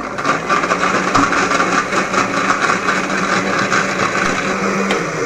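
Electric countertop blender switched on and running steadily, grinding coconut with milk in its glass jar.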